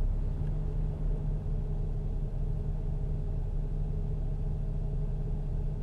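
A steady low background rumble with no distinct taps or knocks.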